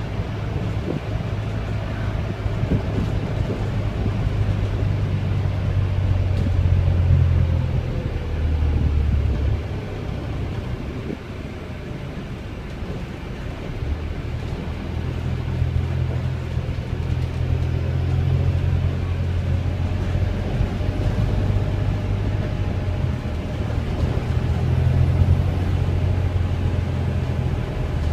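Volvo B5LH hybrid double-decker bus running, heard from inside the passenger saloon: its four-cylinder diesel and drive give a steady low drone with road rumble. The drone dips for a few seconds near the middle before picking up again, and a faint whine falls slowly in pitch over the first several seconds.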